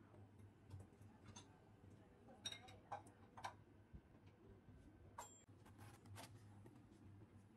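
Near silence with a low steady hum and a few faint scattered clicks and taps; about six seconds in, a knife slices into a cabbage on a wooden chopping board.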